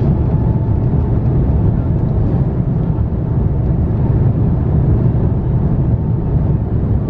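Cabin noise of an Airbus A350-900 on its takeoff run, heard over the wing: a loud, steady low rumble from the Rolls-Royce Trent XWB engines and the rolling gear, with a faint engine whine held in the first seconds.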